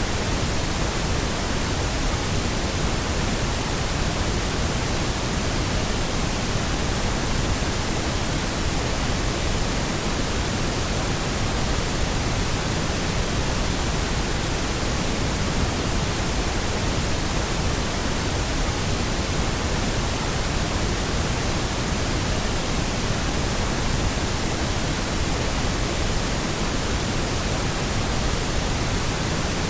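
Steady, unchanging pink noise: an even hiss spread across the whole range, with no tones or events.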